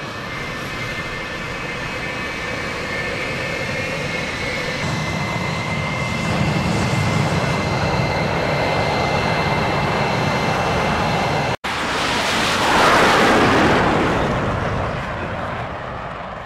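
Jet engines of F-4 Phantom fighter jets flying past: a steady jet noise with a high whine that builds slowly. After a brief break it swells into a louder pass and fades away.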